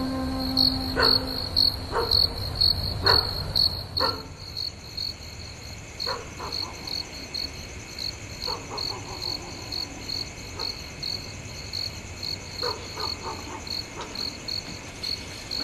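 Cricket chirping steadily, an even run of high chirps a few times a second. A few knocks sound in the first four seconds, and there are faint clicks later.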